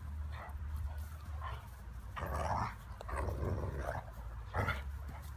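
Two standard poodles rough-housing, giving short bursts of play growling and huffing breaths, the longest a little past two seconds in and another about three seconds in.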